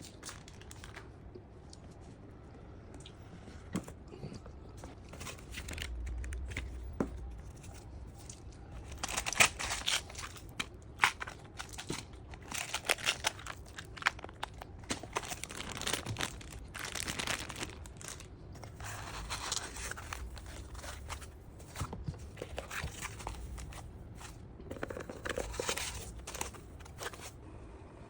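Crinkling, rustling handling noise with scattered sharp clicks and taps, coming in irregular bursts that grow busier about a third of the way in.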